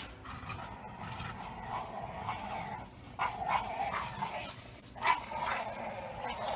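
Two small dogs growling at each other, with a few short, sharp yips about three seconds in and again about five seconds in.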